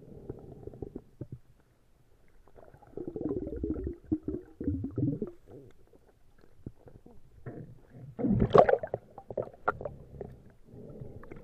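Underwater, a diver's exhaled air bubbles burbling past the camera in irregular bursts, the loudest about eight seconds in.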